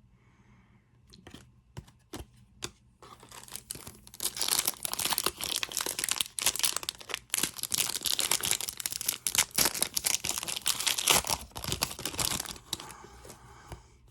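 A trading-card pack's wrapper being torn open and crinkled by hand. A few crackles come first, then about eight seconds of continuous tearing and crinkling, which dies down near the end.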